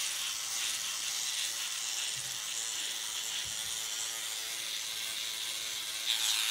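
SkinPen microneedling pen's small motor buzzing steadily as the needle cartridge is run over the skin.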